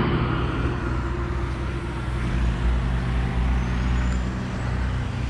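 Road traffic noise: a steady low rumble of vehicles.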